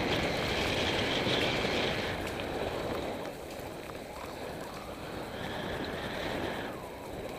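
Mountain bike rolling fast down a dirt singletrack: tyre noise on the dirt and wind rushing over the microphone, a little louder for the first three seconds, with a few light clicks from the bike.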